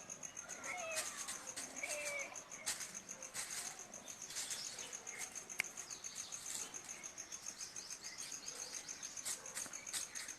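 A steady, high insect trill, typical of crickets, runs throughout. A few faint short chirping calls sound in the first couple of seconds, with light scattered clicks and rustles.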